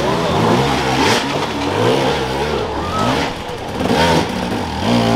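Enduro dirt bike engine revving hard in repeated bursts, its pitch rising and falling several times, as the bike struggles for grip on a slippery muddy climb.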